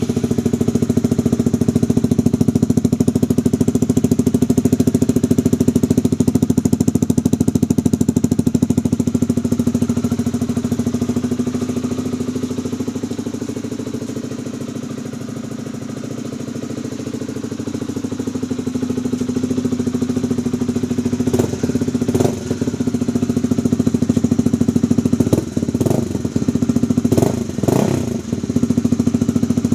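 Honda CBR150R's single-cylinder engine idling steadily through an SC Project exhaust with the dB killer fitted, just after being started. Near the end there are several short, sharp throttle blips.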